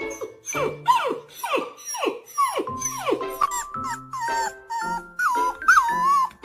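A dog whining and yelping in a run of short calls, each falling steeply in pitch, about two a second, turning into longer wavering calls in the second half, over background music.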